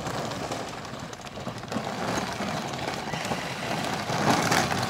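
Children's battery-powered ride-on toy quad running over dirt bumps, its motor and plastic wheels rolling on the dirt, getting louder about four seconds in as it comes closer.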